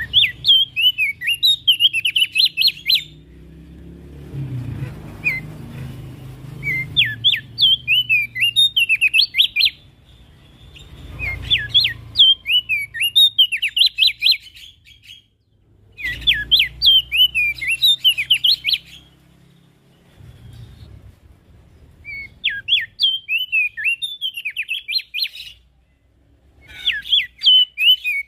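Opior jambul (Javan grey-throated white-eye) singing in repeated phrases of rapid, sharp chirping notes, about six bursts of two to three seconds each with short pauses between, over a faint low rumble.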